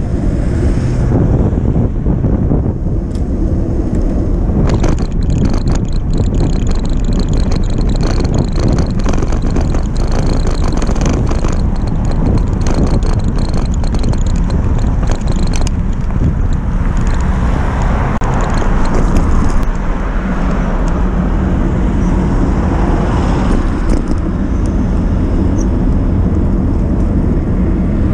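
Wind rumbling on the microphone of a handlebar-mounted camera on a moving bicycle, with road noise from the tyres. A run of rattling clicks comes in for several seconds, and a swell of traffic noise follows in the middle.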